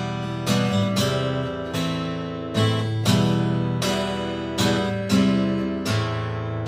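Acoustic guitar strummed in a steady rhythm, about two strokes a second, with the chords changing every second or so: an instrumental passage of a song with no singing.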